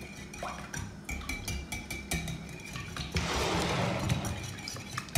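Wire whisk beating eggs and milk in a glass bowl, its wires clicking rapidly against the glass, with a louder swishing of the liquid for about a second past the middle.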